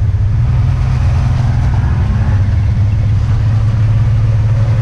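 Off-road vehicle engine running steadily with a constant low hum.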